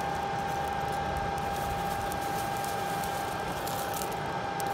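Electric blower fan forcing air into a coal forge, a steady whine over a rushing hiss of air. Near the end a few light clicks as pieces of coal are dropped onto the fire by hand.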